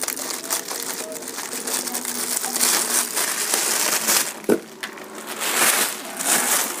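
Clear plastic wrapping crinkling and rustling in uneven waves as it is pulled and handled around a new acoustic guitar.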